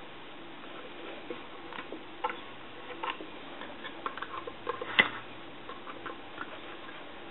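Scattered small clicks and taps as the parts of a Western Electric 202 desk telephone are handled during reassembly, with one sharper click about five seconds in.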